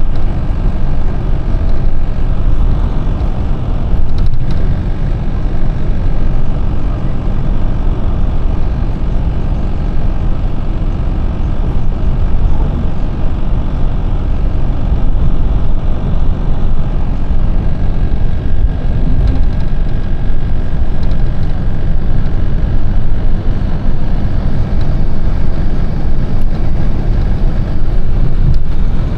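Bus engine and road noise heard from inside the passenger cabin while the bus is moving: a steady low rumble.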